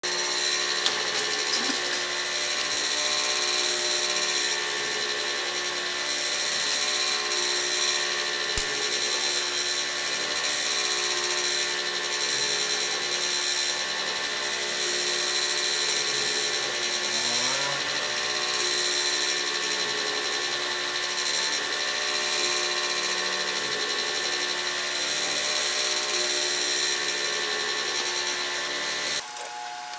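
Delta 3D printer running, its stepper motors whining in several steady tones over a steady hiss, with a few brief rising and falling glides as the motors change speed. The sound drops away sharply about a second before the end.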